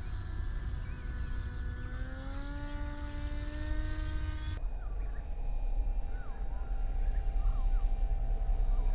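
Electric motor and pusher propeller of a Multiplex EasyStar foam RC glider whining in flight, the pitch rising over the first few seconds; after a cut, a steadier, higher whine that dips slightly near the end. Wind rumbles on the microphone throughout.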